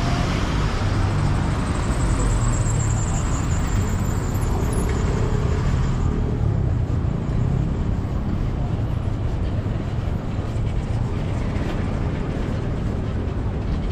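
City street traffic: cars and a small van driving past, a steady mix of engines and tyre noise, its upper hiss easing off about halfway through.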